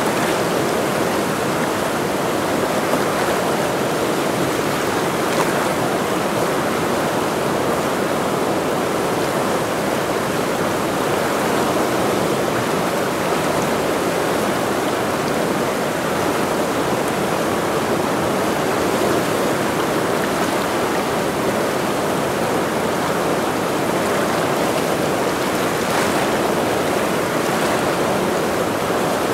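Fast mountain river rushing, a steady, even noise of running water that neither rises nor falls.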